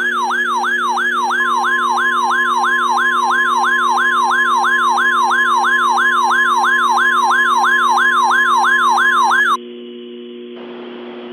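An electronic siren sweeps down in pitch over and over, about three times a second. About a second and a half in, a steady NOAA Weather Radio 1050 Hz alert tone joins it. Both stop together near the end, leaving only a low steady hum.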